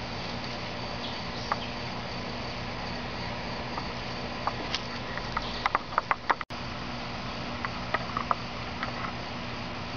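Steady background hiss and low hum with scattered sharp light clicks and taps, including a quick run of about six louder clicks a little past halfway and a few more shortly after.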